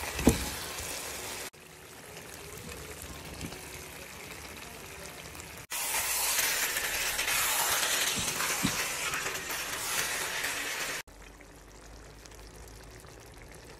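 Chicken drumsticks dropping from a plate into a pan of curry masala with a single thud near the start, then the curry sizzling and bubbling in the pan as an even hiss. The sound comes in three edited stretches that cut off abruptly, the middle one the loudest.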